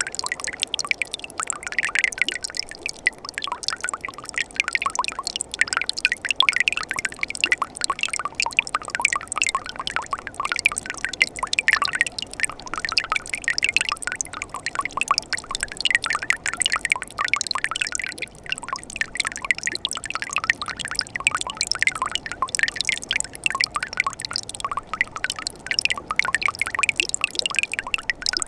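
Mountain valley stream in winter, water trickling and splashing steadily, a dense stream of quick small splashes and gurgles.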